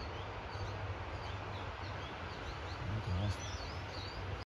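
Outdoor ambience: small birds chirping again and again over a steady rushing noise, with a short low gust of wind on the microphone about three seconds in. The sound cuts off abruptly near the end.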